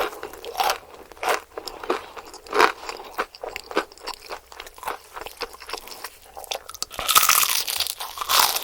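Crunching and chewing of crispy breaded KFC fried chicken: a run of short crackling crunches, with a louder, denser stretch of crunching near the end.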